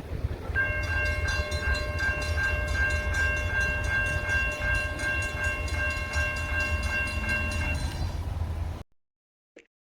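Amtrak P42DC diesel locomotive's multi-chime air horn holding one long chord for about seven seconds, over the rumble of the passing train. A mechanical crossing bell rings rapidly and evenly underneath, and all sound cuts off abruptly near the end.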